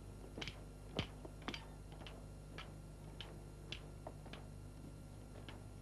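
Faint slow steps, light taps about two a second, over the low steady hum of an old film soundtrack.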